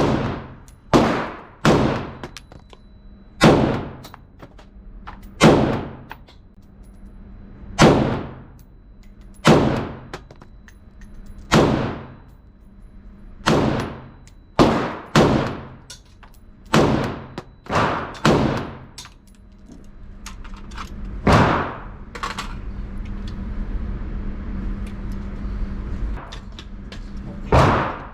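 Semi-automatic AR-15-pattern rifle firing single shots at an uneven, slow pace, about sixteen in all, each with a short echo. The shots come one to two seconds apart, with a longer pause in the last third.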